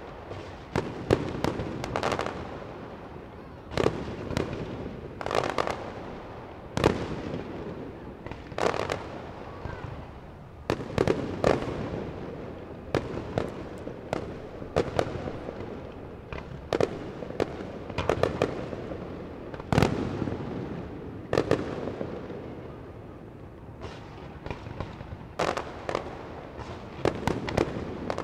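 Aerial fireworks shells bursting in a continuous display: a sharp bang every second or two, with quick clusters of several bangs at a time, over a constant background of crackle and rumble.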